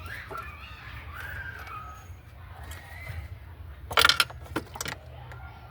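A short loud metallic clatter about four seconds in, followed by a few lighter clinks, as metal tools or parts are handled during engine-bay work. Hens cluck in the background over a steady low hum.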